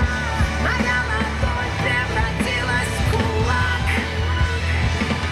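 Live band music played loud over an open-air concert sound system, with a strong, steady bass.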